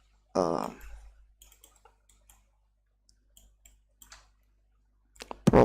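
A few faint, scattered clicks from a computer mouse and keyboard, following a brief spoken filler sound.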